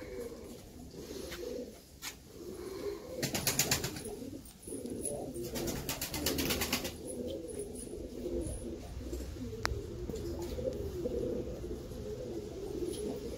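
Domestic miro pigeons cooing continuously in low, repeated coos. Two short bursts of rapid clattering come about three and five and a half seconds in.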